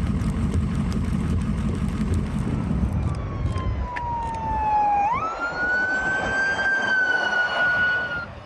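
A low rumbling noise for the first few seconds, then a fire truck's siren: a slowly falling wail that jumps up in pitch about five seconds in, holds nearly steady, and cuts off near the end.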